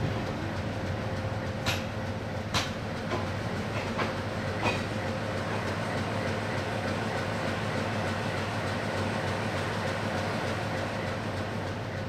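Passenger coaches of a departing express train rolling past, their wheels clacking over rail joints several times in the first five seconds. After that comes a steady rumble as the last coach goes by and the train draws away.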